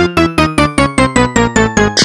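Electronic MIDI ringtone music: a fast run of short, sharply struck keyboard-like synth notes, about six a second, stepping through a melody.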